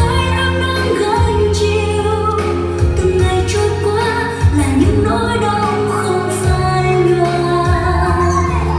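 Music: an Asian pop song with a female singer over sustained bass notes.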